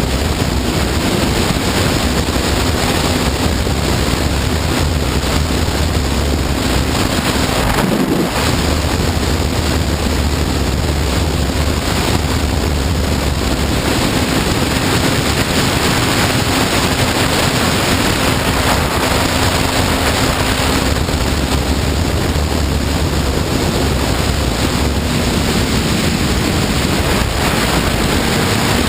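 Wind rushing over the microphone while a Honda CBR954RR's inline-four engine runs at a steady cruise, with one brief dip in the engine note about eight seconds in.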